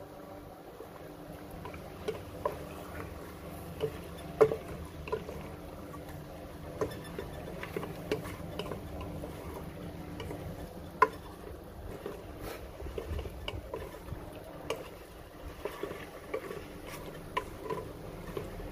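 Chicken pieces cooking in a pot, bubbling and crackling with small irregular pops, and a couple of sharper clicks about four and eleven seconds in.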